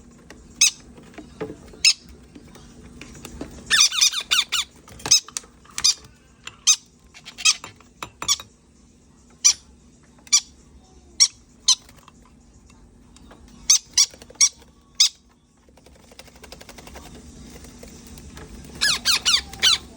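Baby parrot chick making short, high-pitched squeaking calls, the begging calls of a chick being hand-fed. Single squeaks come every second or so, with rapid runs of calls about four seconds in and again near the end.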